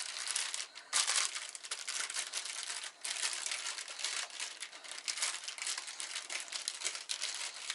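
A sheet of paper crinkling and rustling unevenly with many small crackles as it is handled and rolled around a log of cookie dough.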